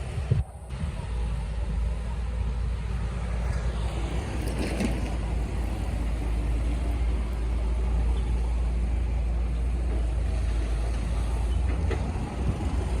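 Heavy machine engine running steadily with a deep rumble, briefly cutting out about half a second in.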